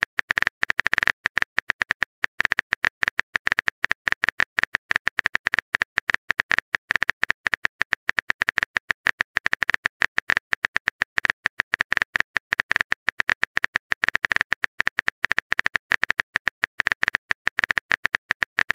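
Rapid, uneven run of keyboard-typing clicks: a phone-keyboard sound effect of a message being typed out.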